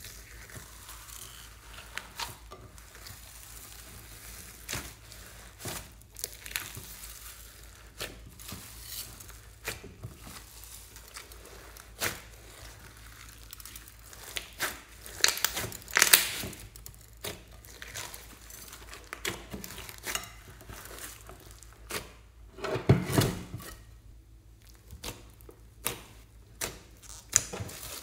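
Hands kneading and folding slime packed with foam beads (floam) in a glass dish: a steady crunching crackle of the beads with squelches and sharp little pops, loudest in clusters a little past halfway and again about three quarters in.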